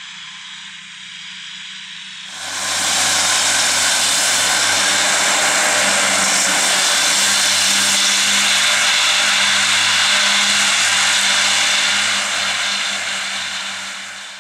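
Fendt 826 Vario tractor's six-cylinder diesel running steadily under load with its triple Kuhn mowers cutting grass, with a low steady hum. About two seconds in it gets suddenly much louder, a dense rushing whir, and stays loud until it cuts off abruptly at the end.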